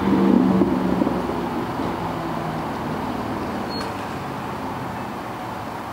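Steady road-traffic noise with a motor vehicle's engine running, loudest at the start and slowly fading away. A brief high chirp sounds about four seconds in.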